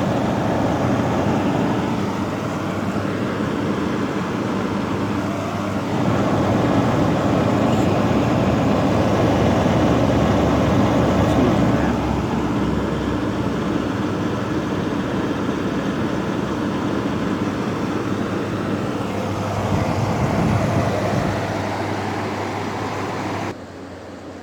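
Brand-new LG air conditioner running, its fan and compressor making a steady hum and whoosh with no rattle: the rattle is cured after the unit was given a bang. The sound drops off abruptly about a second before the end.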